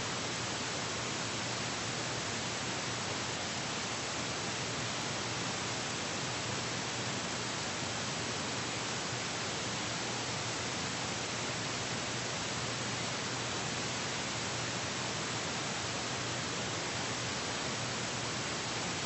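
Steady, even hiss with nothing else in it: the blank track of a newsreel that has no sound.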